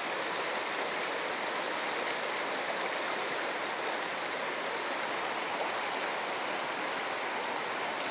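Steady, even rush of flowing river water, without a break.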